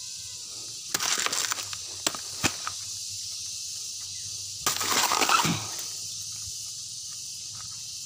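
A steady high insect buzz, with two bursts of rustling and crunching of dry leaf litter: one about a second in and a longer one about five seconds in, with a few light clicks between them.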